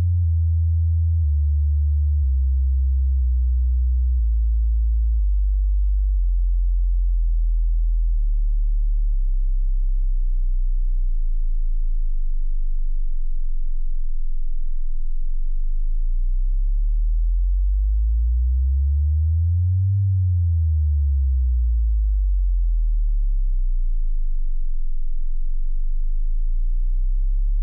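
Deep, low-pitched electronic sine tones at a steady loudness, shifting slowly in pitch, with tones gliding up and down past each other in the second half.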